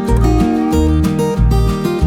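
Background music: strummed acoustic guitar over a steady bass beat.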